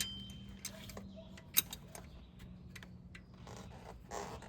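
A few sharp, short clinks of hand tools on the engine's metal as bolts are worked loose, the loudest about a second and a half in, over a faint steady hum.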